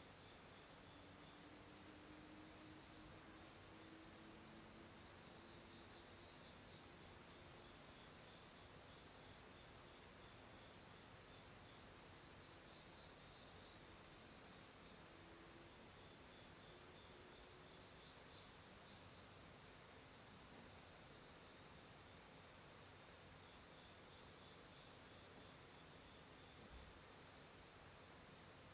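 Faint night chorus of crickets: a high, pulsing chirping with a steady thin whine above it. In the first half there are also faint ticks, about two a second.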